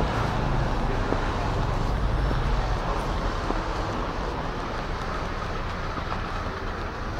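Street traffic noise: a steady low rumble with a hiss over it, easing a little after the first few seconds.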